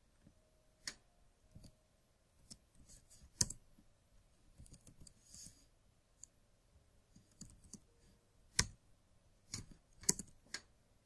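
Computer keyboard typing: quiet, irregular key clicks, with a handful of sharper, louder clicks among them.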